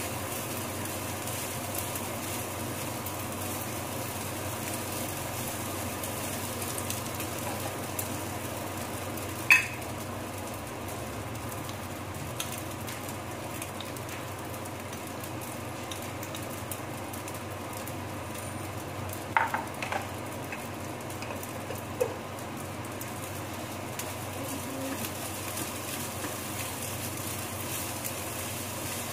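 Rice frying in a skillet with a steady sizzle as a spatula turns it over. A sharp knock of the spatula against the pan comes about a third of the way in, then a few more around two-thirds of the way through.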